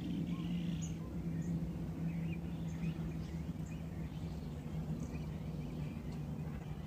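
Outdoor ambience of scattered short bird chirps over a steady low hum that sinks slightly in pitch.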